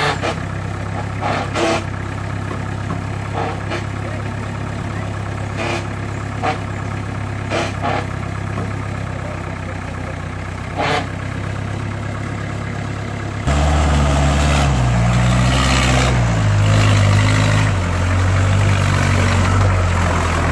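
Off-road Jeep engine running steadily at low revs, with a few short knocks, while the rig sits in a river crossing. About two-thirds of the way in it suddenly gets much louder, the revs rising and falling, as the jeep drives up out of the water.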